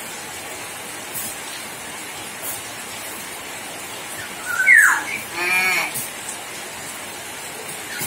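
Common hill myna calling once about four and a half seconds in: a short note, a quick falling whistle, then a drawn-out voice-like sound imitating human speech, over a steady hiss.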